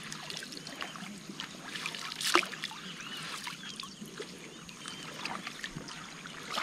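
Water splashing and dripping in small plinks and trickles, with one louder splash about two seconds in.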